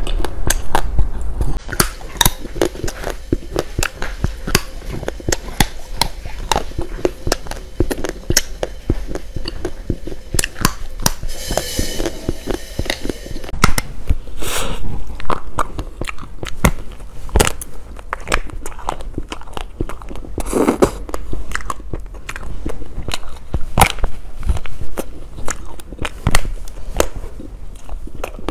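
Close-miked eating of sweets: a steady run of crisp bites, crunches and wet chewing clicks from the mouth.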